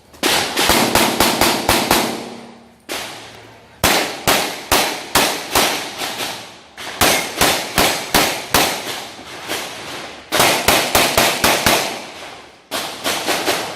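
Gunshots fired in rapid strings of several quick shots, with short pauses between the strings and a brief echo after each shot.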